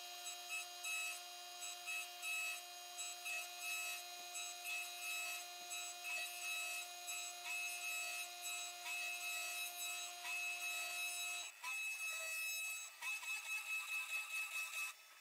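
CNC router spindle whining with a stack of steady high tones as a quarter-inch end mill cuts a spark plug hole into a metal cylinder head, the level rising and falling about twice a second as the cutter works round the hole. About eleven seconds in the lower tones drop out and the pulsing quickens.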